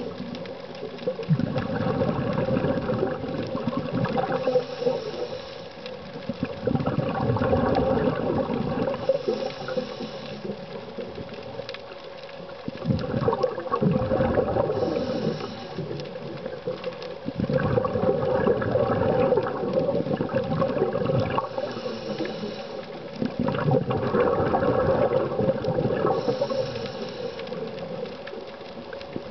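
Scuba diver's regulator breathing underwater, five breaths: each exhale is a long rush of bubbles, followed by a short, high hiss of air on the inhale, over a steady hum.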